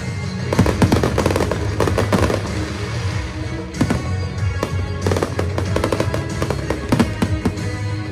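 Fireworks display: aerial shells bursting and crackling in quick clusters, with music playing steadily alongside.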